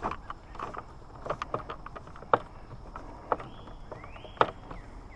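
Irregular clicks and knocks of parts and tools being handled while a Minn Kota Terrova trolling motor is reassembled, with a brief rising whine that levels off a little past halfway.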